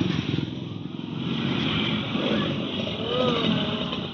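Motor scooter engines running in dense street traffic, with a steady rapid low pulsing and road noise. A short voice call is heard about three seconds in.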